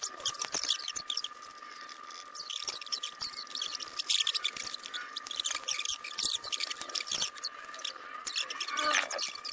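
Repeated short, irregular squeaky scratching and rubbing strokes of hand work on wood, over a faint steady high whine.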